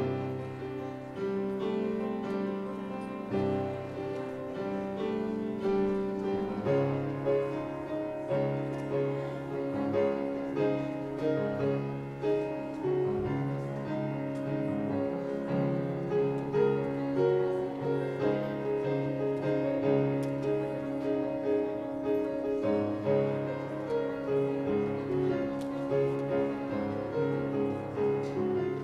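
Grand piano playing a prelude, held chords under a melody.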